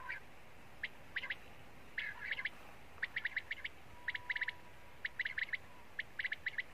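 Common quail calling: short clusters of quick, sharp, high notes, repeated about once a second.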